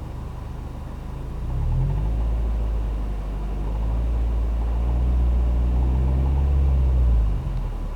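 2008 Subaru Legacy BP5 turbocharged flat-four engine revved from idle about a second and a half in, held at raised revs for about five seconds, then dropped back to idle near the end. At raised revs it makes a faint rattling noise. A dealer traced this to an under-tightened spark plug that had worked loose and was leaking, causing impact-like knocks.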